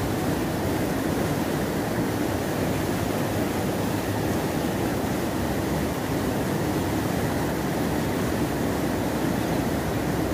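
Steady rush of fast-flowing river water, an even noise that does not change.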